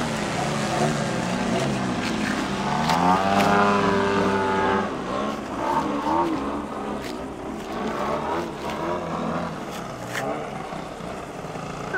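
Engine and propeller of a radio-controlled aerobatic model airplane running in flight, the note shifting in pitch as it flies. It is loudest about three to five seconds in, then fainter as the plane climbs away.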